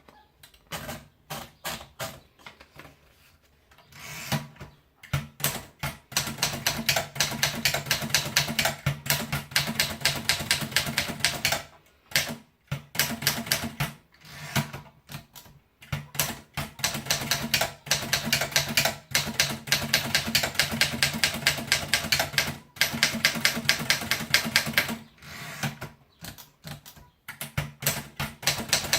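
Remington Sperry Rand 2000 typewriter being typed on: quick runs of sharp keystrokes, several a second, broken by a few short pauses.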